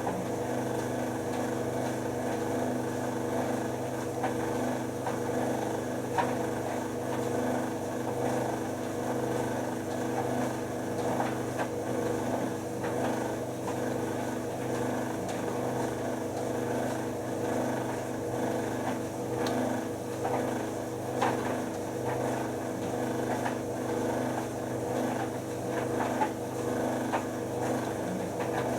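White Knight C44A7W vented tumble dryer running with a load: a steady motor and drum hum, with occasional light knocks.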